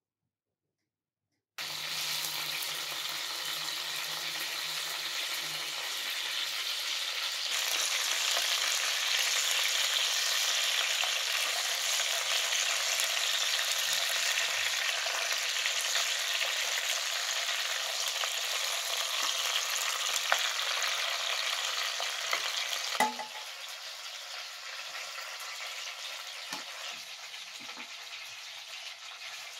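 Chicken pieces sizzling as they fry in oil in a nonstick pan, with faint clicks of a metal spoon and spatula turning them. The sizzle starts after a second and a half of silence, grows louder a few seconds later, and is quieter after a single knock about three-quarters of the way through.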